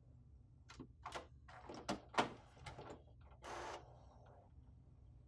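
HP DeskJet 3634 printer's cartridge carriage moving into the ink access position after power-on: a run of mechanical clicks and clacks, the loudest a little after two seconds in, then a brief whir of the carriage motor about three and a half seconds in.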